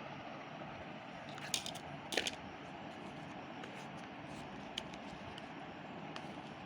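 A few short, sharp clicks of small objects being handled, two close together about a second and a half and two seconds in and a fainter one near five seconds, over a steady hiss.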